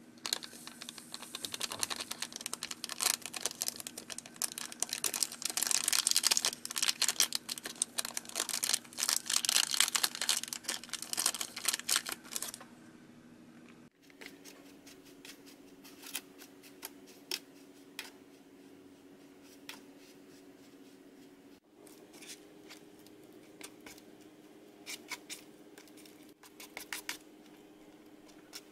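Foil sachet crinkling and rustling while powder is shaken out of it into a plastic candy-kit tray, with dense quick taps for about the first twelve seconds. After that, a small plastic spoon clicks and scrapes against the plastic tray now and then as the powder is stirred. A faint steady hum runs underneath.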